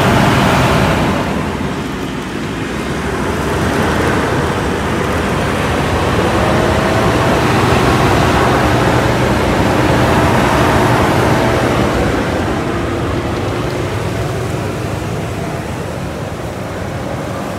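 Land Rover Defender engine running steadily while the truck works through a deep muddy rut, under a loud continuous rush of noise.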